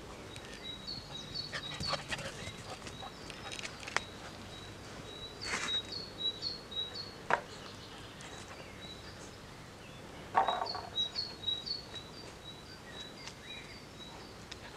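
A small songbird singing: runs of short, high chirps repeated a few times a second, in two spells. Over it come scattered short clicks and crackles close by, the loudest about ten seconds in.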